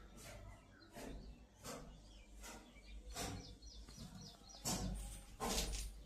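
Small birds chirping in the background, with scattered sharp knocks and clicks, the loudest near the end.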